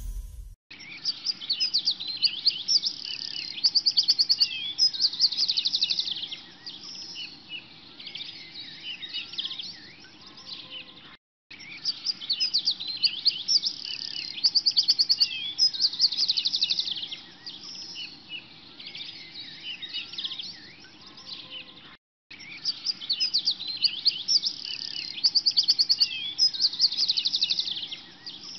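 A recording of many small birds chirping and trilling over a steady low background noise. The same stretch of about eleven seconds plays over and over, with a brief dropout each time it restarts.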